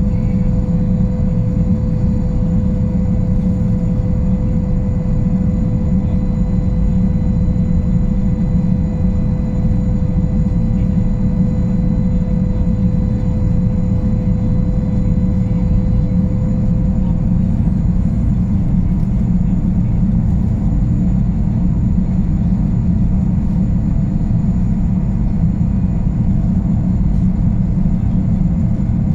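Boeing Jetfoil 929-115 running at reduced speed: a steady low machinery rumble with a constant whine over it.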